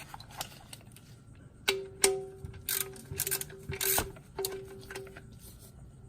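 A series of sharp metal clinks, each leaving a short ringing tone, from a wrench working on the oil pan drain plug as it is tightened back in.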